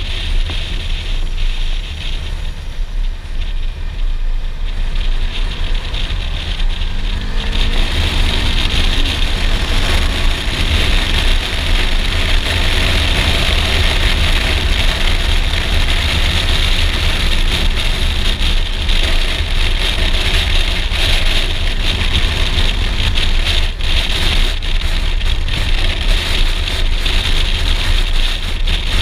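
Suzuki V-Strom 650 XT's V-twin engine running on the move, with wind rushing over the helmet-mounted microphone. About seven seconds in, the engine note rises as the bike speeds up, and the wind rush gets louder.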